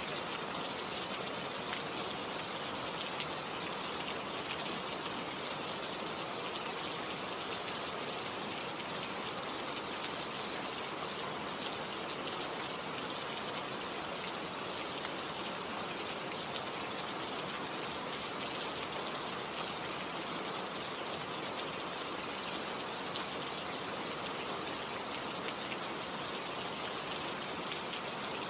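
Steady rain falling, an even patter of drops with no let-up.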